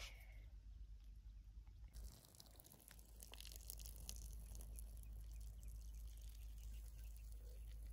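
Faint trickle and drips of cooking water being poured off an aluminium pot of instant noodles onto the ground, with small ticks from the pot being handled.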